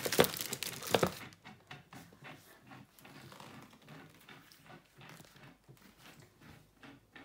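Plastic packaging crinkling loudly for about the first second, then fainter rustling and light scattered clicks as the parts are handled.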